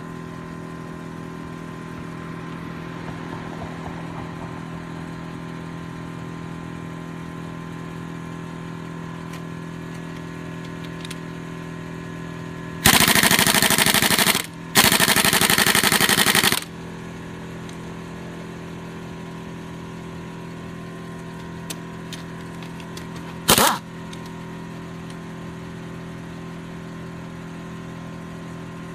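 Pneumatic impact wrench hammering at a wheel lug nut in two bursts of about two seconds each, a little before halfway, then one brief burst near the end. Underneath, the onboard air compressor runs with a steady hum, rebuilding pressure that has run too low to break the nut loose.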